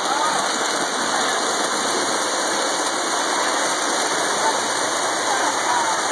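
Steady rumbling whir of model trains running on the layout's track, with indistinct voices mixed in.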